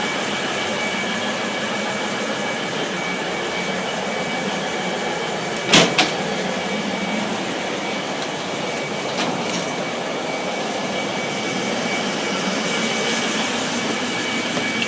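Hunter diesel railcar set J5 running steadily, with a constant whine over the engine and rail noise. A single sharp clank comes about six seconds in.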